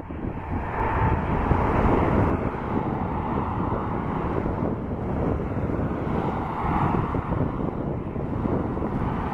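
Airbus A320 jet engines running at low taxi power as the airliner rolls past, a steady noise with wind buffeting the microphone.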